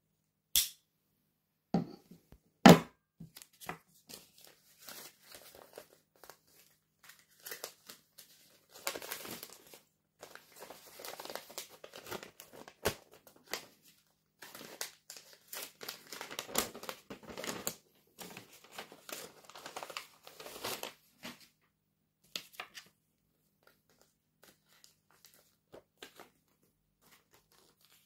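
Packaging being unwrapped close to the microphone: irregular crinkling and tearing that comes and goes for most of the stretch, then thins out to a few small rustles. A few sharp clicks come in the first seconds, the loudest about three seconds in.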